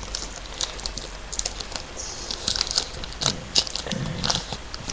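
Trading-card booster pack wrapper being torn open and crinkled by hand: a run of short, sharp crackles and rustles.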